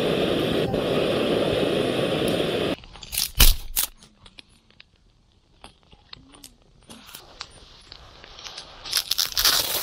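Portable gas torch on a gas canister hissing steadily as it blows flame into the kindling, shut off suddenly about three seconds in. A few sharp snaps and knocks follow, then the campfire crackles faintly with scattered pops, and a louder crunching comes near the end.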